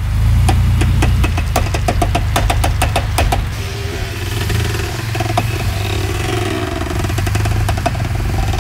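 Chevy Blazer ZR2 creeping through a sharp, slow turn, its V6 running low under a rapid run of clicking knocks from the rear axle for the first three seconds or so, then occasional knocks. This is the clunking from the rear G80 locking differential, caused by a broken clip on the left side.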